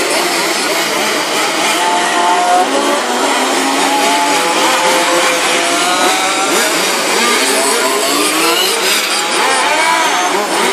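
Several 1:5-scale radio-controlled Formula 1 cars racing together, their small two-stroke petrol engines overlapping, each rising and falling in pitch as it brakes and accelerates through the corners.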